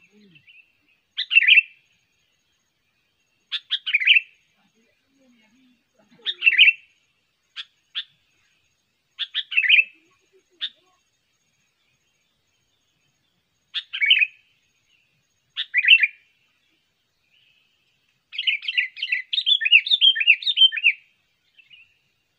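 Sooty-headed bulbul calling: short bubbly phrases every few seconds, then a longer run of rapid chattering notes near the end.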